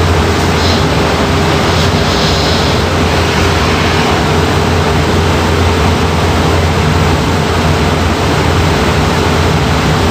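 Robotic buffing machine running: a loud, steady rush of noise over a low motor hum, with a brief higher hiss about two seconds in.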